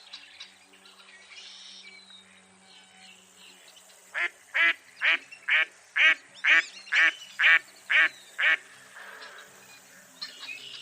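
Mottled duck quacking: a series of about ten loud quacks, roughly two a second, starting about four seconds in. Faint calls of other birds come before it.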